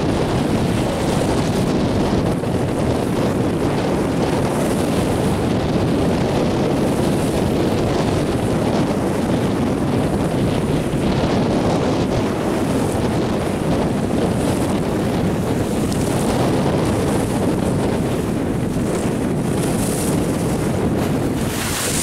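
Strong wind buffeting the microphone, with choppy river waves washing and splashing over a low grassy bank. A brief hissing splash of spray comes near the end.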